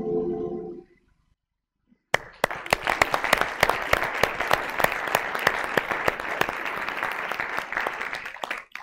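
A choir's last sung chord fades out, and after about a second of silence an audience breaks into applause, many hands clapping steadily before it dies away near the end.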